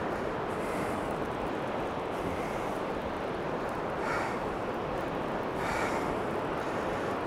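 Wind rushing over the microphone mixed with surf breaking on a sand beach, a steady noise that swells briefly about four and again about six seconds in.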